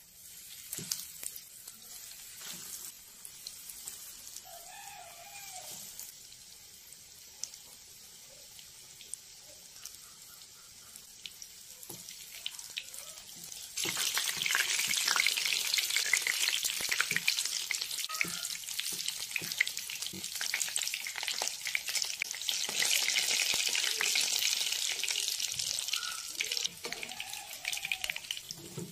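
Breadcrumbed chicken cutlets deep-frying in hot oil in a pan, sizzling steadily with occasional light clicks. The sizzle is softer at first and becomes much louder about halfway through.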